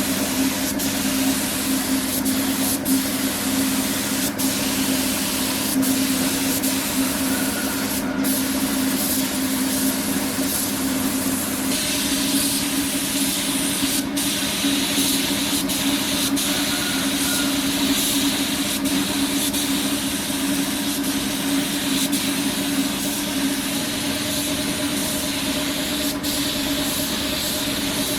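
Compressed-air spray gun spraying epoxy primer, a steady hiss over the continuous hum of the air compressor's motor. The hiss shifts slightly in tone about midway.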